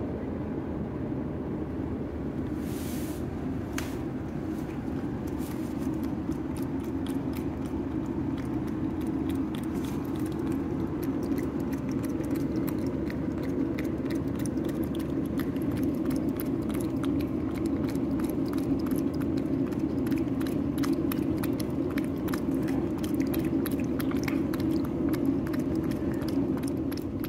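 Domestic cat licking a lickable paste treat out of a small glass cup: rapid wet lapping clicks, starting about six seconds in and continuing steadily, over a steady low hum.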